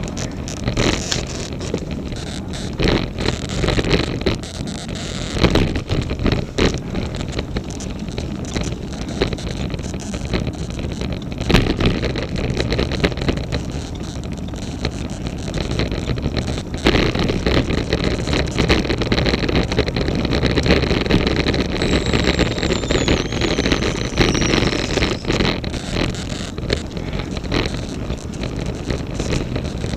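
Road bike on the move, with steady wind and road noise on a bike-mounted action camera and irregular clicks and knocks throughout, one sharp knock near the middle. The louder knocks come from the top-tube bag; the fainter ticking is an abnormal clicking noise from the bike whose cause the rider has not found.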